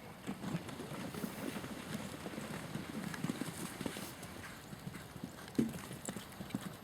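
Hoofbeats of an event horse galloping on a cross-country course, a quick irregular run of low knocks.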